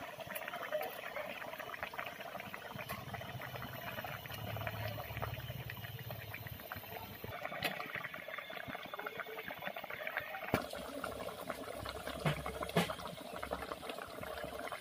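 Thick curry gravy simmering in a steel kadai: a steady crackle of small bubbles popping, with a few sharper clicks.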